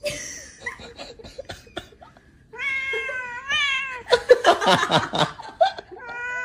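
A cat meowing in two drawn-out calls, the first wavering in pitch and the second held steady, after a few light knocks. A loud noisy stretch comes between the two calls.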